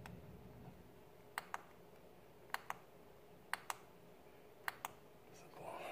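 A small plastic switch on an LED light kit clicked four times, about once a second. Each click is a quick pair of snaps, a press and a release.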